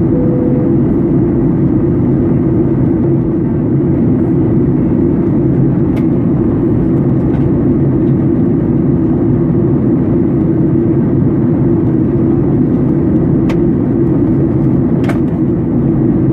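Steady airliner cabin noise: a loud, even low rumble of engines and airflow heard inside the passenger cabin. Right at the start comes the low second note of a two-tone cabin chime, and a few faint clicks follow later.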